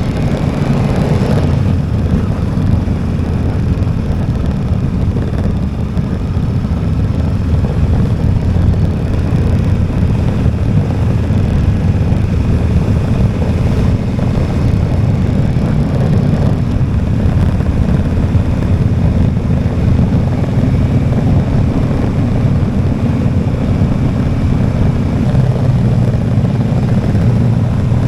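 Motorcycle engine running steadily as the bike is ridden along, with a low, even drone and a slight change in pitch near the end.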